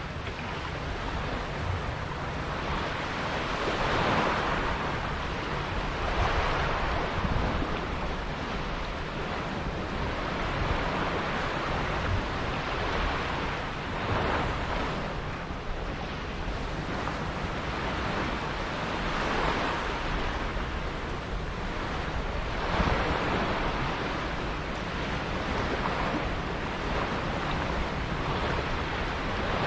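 Sea water washing and splashing in uneven surges every few seconds, with wind blowing across the microphone.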